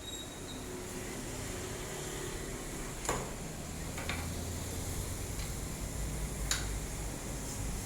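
Steady low background hum and hiss, with a few short sharp clicks about three, four and six and a half seconds in.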